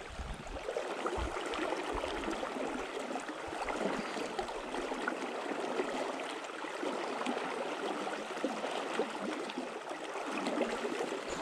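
River water flowing steadily: an even, unbroken rush of moving water.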